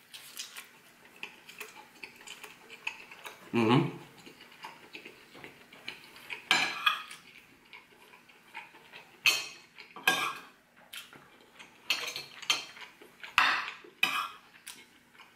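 Metal fork clinking and scraping against a ceramic plate while rice and fried chicken are eaten, with a run of sharp clinks through the second half. A brief low sound comes about four seconds in.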